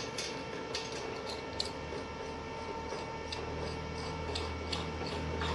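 Stainless steel ornament ball being screwed back onto its bolt by gloved hands: faint scattered clicks and the rubbing of metal threads, over a steady background hum that deepens about three and a half seconds in.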